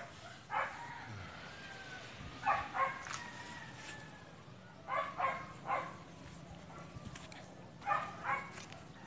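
A dog barking in short barks that come in groups of two or three, with pauses of a couple of seconds between groups.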